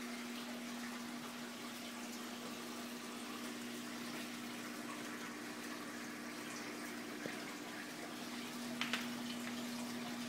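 Aquarium filter and circulation pump running: steady running water with a constant low hum. There are a couple of small ticks toward the end.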